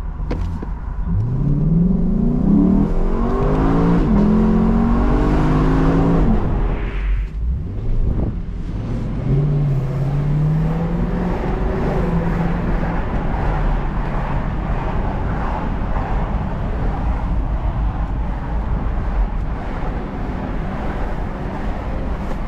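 Lexus LC 500's 5.0-litre V8 accelerating hard, revs climbing and dropping back at each of about three quick upshifts of its 10-speed automatic, then the throttle lifts about seven seconds in. After a brief lull it pulls away gently again and settles into low-rev cruising over steady road and tyre noise.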